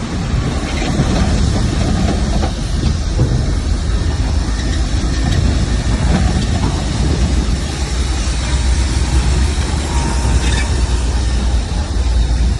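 Bulldozer's diesel engine running steadily under load, a deep rumble with a continuous metallic clatter from the steel crawler tracks.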